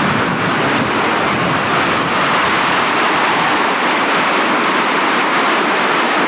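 Loud, steady rush of strong wind from a nearby tornado, buffeting the camcorder microphone.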